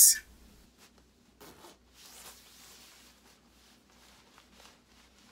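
Faint rustling of a quilted nylon puffer vest with a short zipper sound as it is adjusted and hands are slipped into its pockets: a brief scrape about a second and a half in, a softer longer rustle after it, then a few light ticks.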